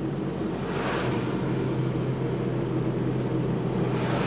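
Car engine and road noise heard from inside a moving car, a steady hum with two brief whooshes, about a second in and near the end.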